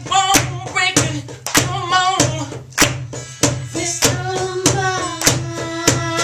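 Live R&B band playing, with a sung vocal line over a steady bass tone and sharp percussive hits about every 0.6 s keeping the beat; near the end the voice holds one long note.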